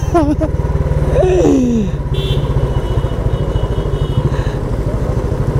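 Motorcycle engine running steadily while riding, a fast even low pulse throughout, with a short falling vocal exclamation about a second in.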